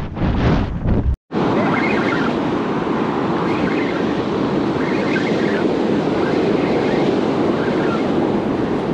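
Wind buffeting the microphone, cut off abruptly about a second in; then the steady wash of surf breaking on the beach.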